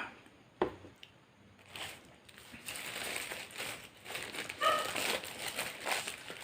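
Paper food wrapping crinkling as it is handled and unwrapped. There is a knock near the start and a short whine about two-thirds of the way through.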